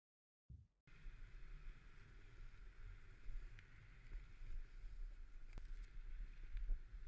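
Snowboard sliding and carving through snow, heard as a low, even rumble of wind with a hiss of snow over it and a few faint clicks. Silent for about the first second.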